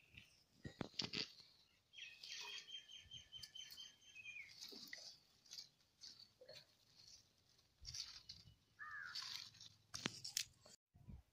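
Dry twigs and sticks crunching and snapping as they are handled and pushed into a wood fire under a cooking pot. A bird trills in the background, and a crow caws about nine seconds in.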